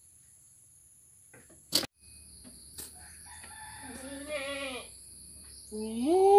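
A goat bleats twice in the second half: a short wavering call, then a louder call that rises in pitch and holds. A steady high insect drone runs underneath, and there is a single sharp click about two seconds in.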